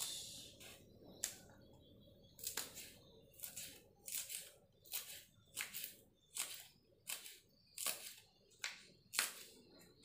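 Small knife slicing green beans against a wooden cutting board: a series of short crisp cuts, sparse at first, then about two a second.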